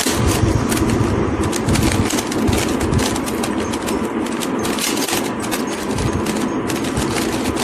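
Rubik's cube being turned quickly by hand: a rapid, irregular run of plastic clicks and scrapes as its layers are rotated.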